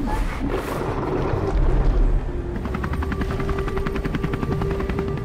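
A low rumble, then, about two and a half seconds in, a helicopter rotor sound effect: a rapid, even chopping with a steady drone.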